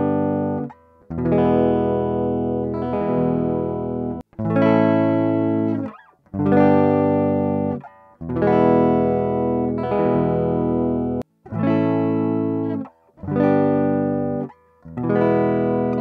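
Dry DI signal of an electric guitar with EMG 81/85 active pickups, with no amp or effects: ringing notes and chords played in short phrases with brief breaks between them. The passage is heard first as recorded through an audio interface's instrument input, then again from about halfway through its line input, and the two sound very similar.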